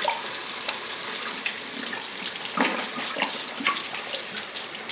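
Kitchen faucet running steadily into a sink while a wet glass beer bottle is scrubbed with a sponge over a bucket of soapy water, with a few sharp clicks and knocks in the middle.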